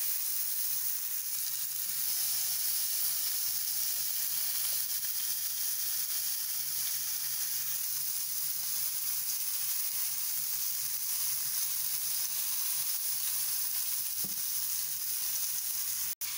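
Lamb rib pieces sizzling steadily on a hot grill pan over a high flame. The sizzle cuts out for an instant near the end.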